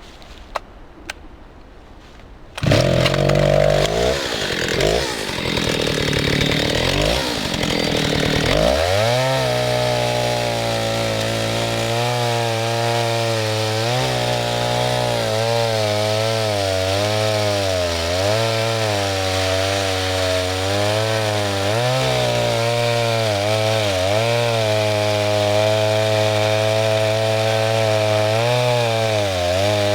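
Old Stihl 08 S single-cylinder two-stroke chainsaw coming in suddenly about two and a half seconds in after a couple of faint clicks, revving up and down, then running at high revs cutting wood, its pitch dipping and recovering again and again as the chain bites.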